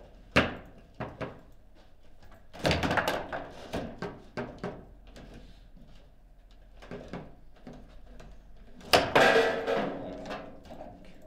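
Table football being played: sharp wooden-plastic clacks and knocks of the ball being struck by the rod figures and hitting the table's walls, in quick clusters, with quieter stretches between. About nine seconds in comes the loudest knock, with a short ring after it.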